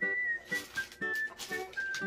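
Background music: a whistled melody over plucked acoustic guitar notes.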